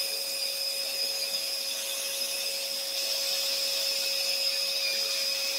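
Scroll saw running steadily, its motor and reciprocating blade giving a constant, even whine.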